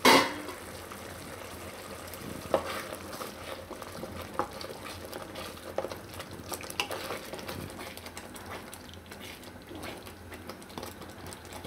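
Thick spinach purée bubbling in a metal kadai, with a spoon stirring it and scraping and tapping against the pan from about two seconds in. There is a brief knock at the very start.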